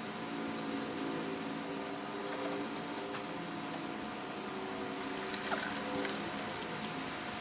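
Steady outdoor background hum, with a short high bird chirp about a second in. About five seconds in come a few light clicks and rattles of a hand and rabbit kits scuffling in a wire-floored rabbit hutch.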